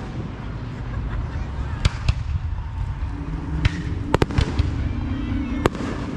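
Aerial firework shells bursting overhead: a series of sharp bangs, a pair about two seconds in and a quick cluster around four seconds in, over steady low background noise.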